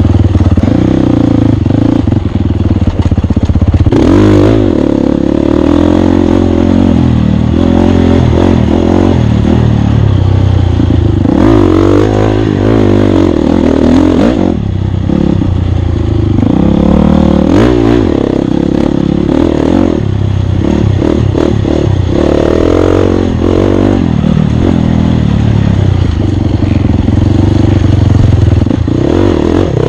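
Off-road racing dirt bike engine running hard, its pitch rising and falling over and over as the rider works the throttle and gears, with clattering knocks from the bike over rough ground.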